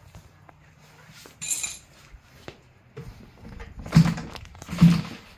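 Giant-scale DLE 222 gas engine being flipped over for a start, giving three short coughing pops about a second apart near the end without catching.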